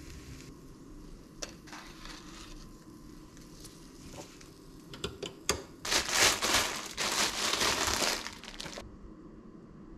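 Plastic bread bag crinkling and rustling for about three seconds as gloved hands handle it. It is preceded by a few light clicks and knocks of kitchen utensils.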